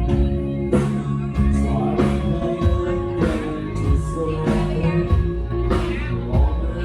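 Loud rock music with guitar, singing and a steady drum beat.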